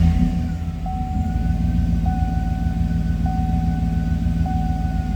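2008 Chevrolet Tahoe's V8 idling just after starting, with a steady high electronic tone that pulses about once every second.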